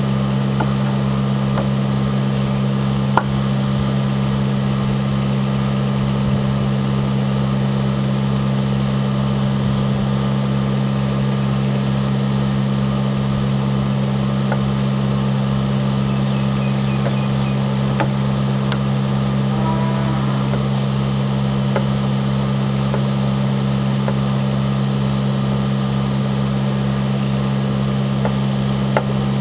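A steady mechanical hum from some running machine, with an even low throb, fills everything at a constant level. A few faint knife taps on a wooden cutting board come through now and then as a cucumber is cut.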